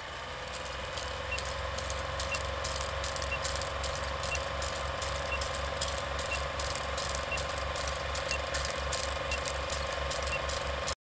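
Vintage film projector sound effect: a steady rapid mechanical clatter with scattered clicks and crackle of old film, and a short high beep once a second ten times, counting down. It cuts off suddenly near the end.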